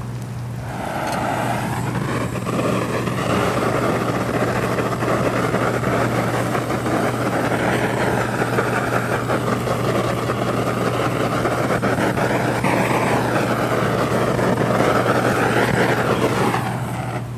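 A loud, steady rushing noise that starts about a second in and drops away near the end, its tone slowly rising and falling, over a constant low hum.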